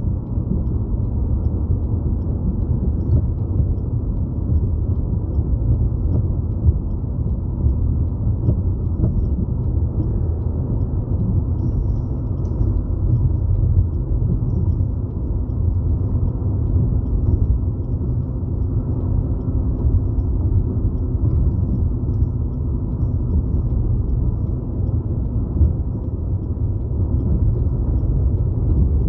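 Steady low road and engine rumble inside a moving car's cabin while cruising, without change.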